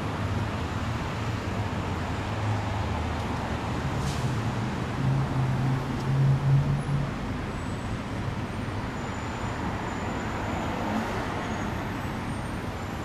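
Road traffic, with a vehicle engine's low hum rising in pitch as it accelerates or passes. It is loudest about six to seven seconds in, then drops back to steady traffic noise.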